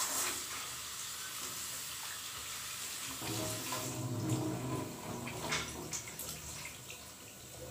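Running water splashing as cleaned squid is rinsed under it, a steady hiss with a few small clicks of handling later on.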